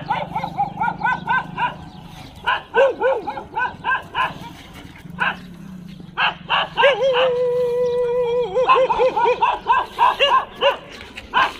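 Dog barking in quick runs of high barks, about three a second, broken by one long held howl a little past halfway.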